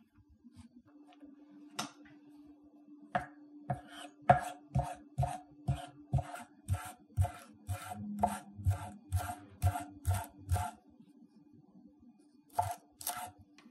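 Chef's knife chopping a bunch of fresh dill on a wooden cutting board: a steady run of knocks about two a second, breaking off and then two more strokes near the end. A faint steady hum runs underneath.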